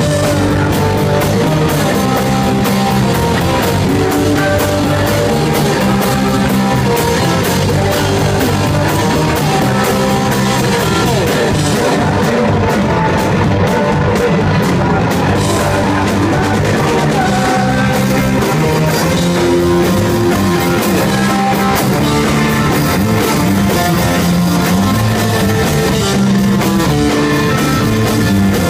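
A live punk rock band playing loudly: electric guitar, electric bass and drum kit, with sung vocals.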